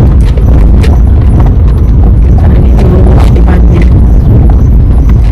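Loud, steady low rumbling noise, with faint voices heard under it now and then.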